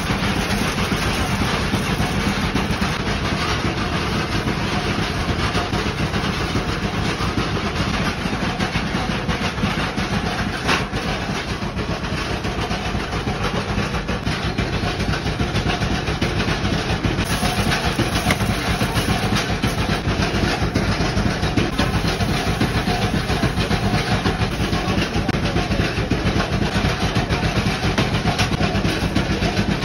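A machine running steadily and loudly, an unbroken mechanical noise with no pauses.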